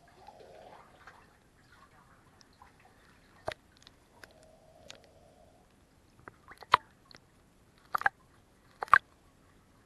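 Lake water lapping and sloshing at the waterline against a pontoon boat's pontoons, with a few sharp slaps: a small one a third of the way in, then three louder ones in the last few seconds.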